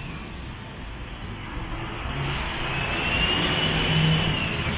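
Traffic on a rain-wet city avenue: a vehicle goes by with tyres hissing on the wet road, swelling about halfway through, along with a thin high whine that rises and then falls away.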